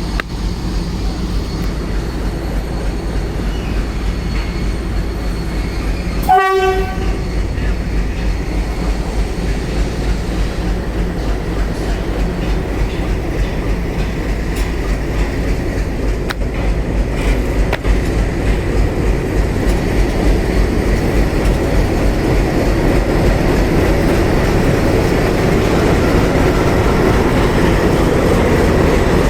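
Indian Railways train running, with a steady rumble and wheel rattle on the track. About six seconds in, the locomotive's horn gives one short blast. The running noise grows louder toward the end.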